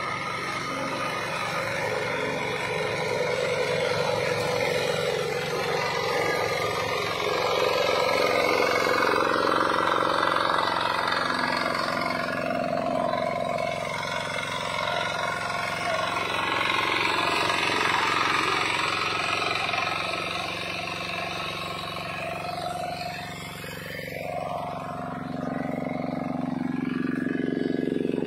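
Tractor engine running with an 80 cm heavy-duty mower cutting grass. The note holds steady, then dips and comes back up about three-quarters of the way through.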